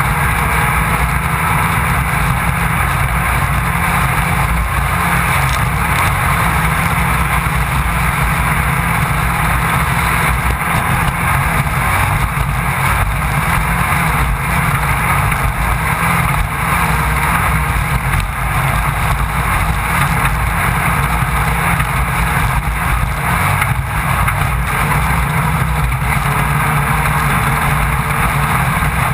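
Off-road race car driving at speed, its engine and the rush of wind and terrain heard from a camera mounted on the car: a loud, steady, noisy drone with a heavy low rumble. Class 1600 desert buggy, which runs an air-cooled VW 1600 cc flat-four.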